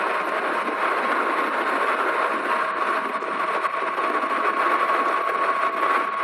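Super73 RX electric bike's rear hub motor whining steadily while riding at speed, its pitch creeping slightly upward, over a steady rush of wind and road noise.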